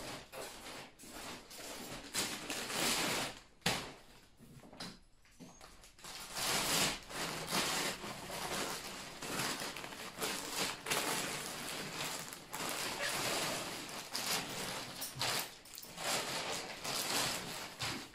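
Large clear plastic storage bags rustling and crinkling in irregular bursts as they are handled and pulled open.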